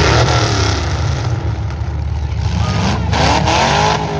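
Stock pickup trucks' engines running in a demolition derby heat, with a steady low rumble and two surges of revving, one at the start and another about three seconds in.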